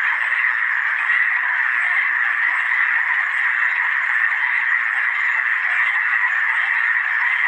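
A dense, steady chorus of many frogs calling at once, with no single call standing out.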